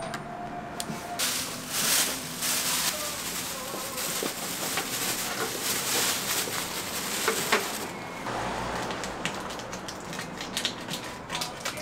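Hot oil sizzling and crackling as food deep-fries; the sizzle swells about a second in and dies down after several seconds, followed by scattered clicks and knocks.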